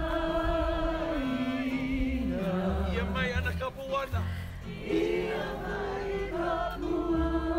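Hawaiian chanting for hula: voices hold long, wavering notes that step down in pitch in stages.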